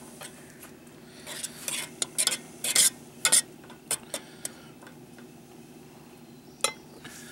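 A metal fork stirring tomato sauce in a small camp pot, scraping and clinking against the pot's side in a quick run of sharp strokes, then one more clink near the end.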